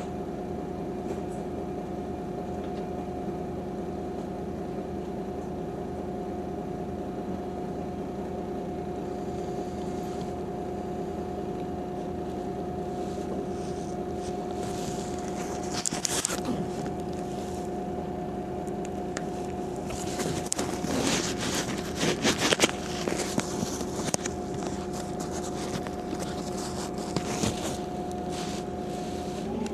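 Inside a Heuliez GX 137L city bus: a steady engine hum with no change in pitch, broken by bursts of rattling and clattering about halfway through and again for several seconds later on.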